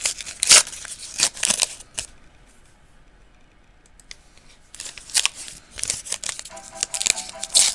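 Crinkling and tearing of a baseball card pack's plastic wrapper as it is opened, in two spells with a quiet gap of about two and a half seconds between them.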